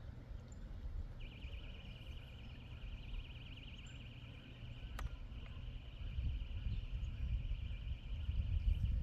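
Strong wind buffeting the microphone as a low rumble that grows louder in the second half. Over it, a steady high, fast-pulsing trill runs from about a second in until just before the end, and a single sharp click falls about halfway through.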